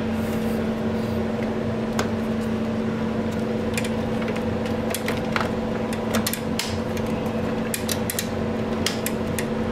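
Steady machine hum, with a scattered run of light clicks and taps from items being handled while a vending machine is restocked.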